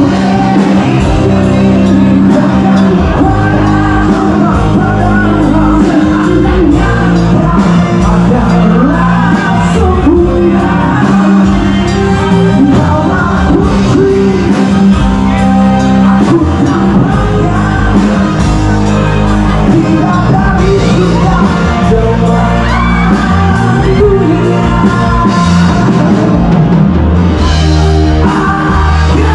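A rock band playing live with a singer, loud and steady.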